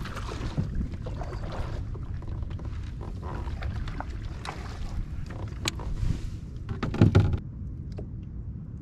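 Hooked smallmouth bass splashing at the surface beside a kayak as it is reeled in, over steady wind rumble on the microphone. The loudest splash comes about seven seconds in, after which the splashing stops.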